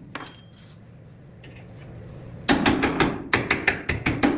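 Hammer striking steel in a rapid run of about nine blows, roughly five a second, starting about two and a half seconds in, after a brief metallic clink near the start.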